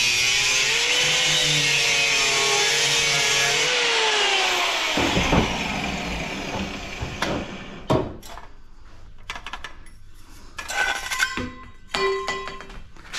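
Angle grinder with a cut-off disc cutting through blue-coated aluminum pipe, a loud steady grinding whine whose pitch wavers, then winds down about four seconds in. After that, scattered metallic knocks and clinks as the pipe and tools are handled on the bench.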